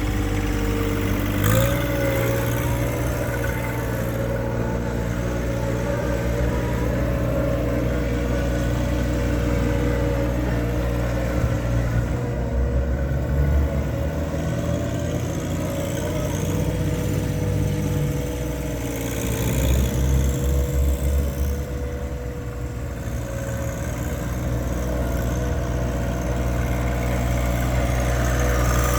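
John Deere 1025R compact tractor's 3-cylinder Yanmar diesel running steadily, its pitch stepping up about a second and a half in, with heavier rumbling stretches around the middle.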